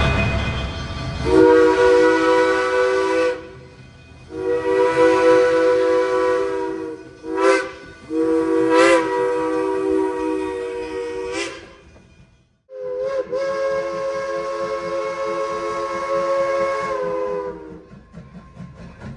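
Narrow-gauge steam locomotive's chime whistle, several notes sounding together, blown long, long, short, long, the grade-crossing signal, then another long blast after a brief break. A train's low rumble is heard at the start.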